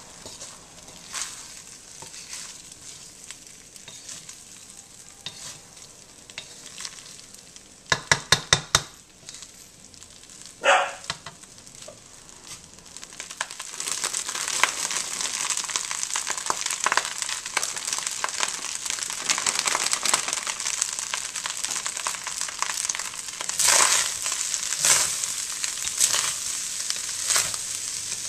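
Fried rice being stirred in a steel wok with a wooden spatula: soft scraping at first, then a quick run of sharp clicks and a single ringing clank. Peas and carrots are poured in from a bag about halfway through, and from then on the wok sizzles loudly under steady stirring.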